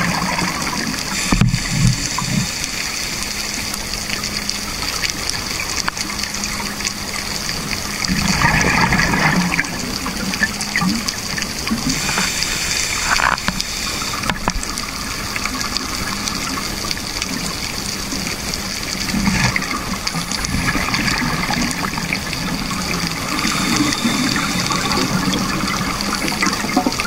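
Underwater sound of scuba divers breathing: a steady hiss with several bursts of bubbling as exhaled air leaves the regulators.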